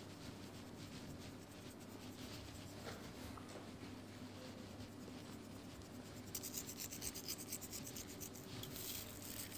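Dry spices sprinkled by hand onto egg-washed lavash flatbreads: faint scattered ticks, turning into a rapid run of small crisp ticks from about six seconds in, over a steady low hum.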